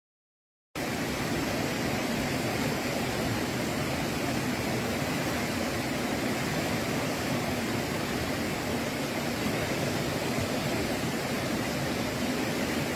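Steady rushing of a fast, rocky river's rapids, an even hiss that starts suddenly about a second in and holds at one level.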